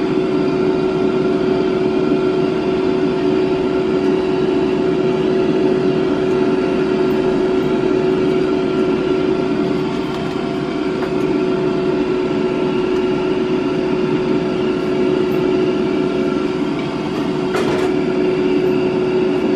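Steady hum of a kitchen appliance's electric fan, holding one constant pitch over a hiss.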